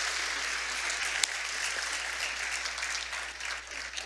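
Congregation applauding: a dense patter of hand claps that thins out and fades near the end, with one sharp click about a second in.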